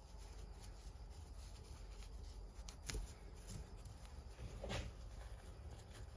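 Faint rustling and scraping of fabric header wrap being wound by hand around an exhaust pipe, with a sharper click about three seconds in and a short brushing sound near five seconds.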